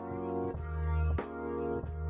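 Background outro music: held chords over a bass line that changes note every half second or so, with a sharp beat about every second and a quarter.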